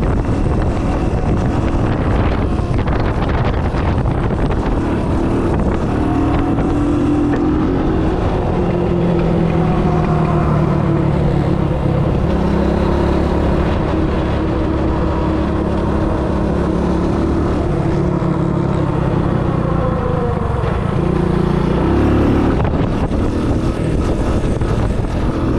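Engine of a three-wheeler running at riding speed, its note climbing and dropping several times as the throttle changes, with a sharp drop about 22 seconds in.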